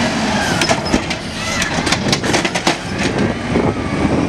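Automated side-loader garbage truck's arm setting an emptied trash cart down at the curb, with a quick run of rattling knocks and clatters from the cart and grabber over the truck's engine running.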